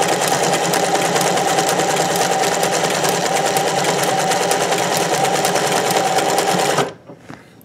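Vintage sewing machine running steadily at speed, its needle rapidly sewing a zigzag over a scallop stitch line, then stopping abruptly about seven seconds in.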